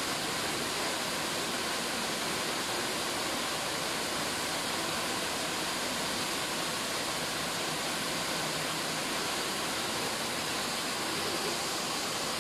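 Waterfall pouring over rock into a pool: a steady rush of falling water.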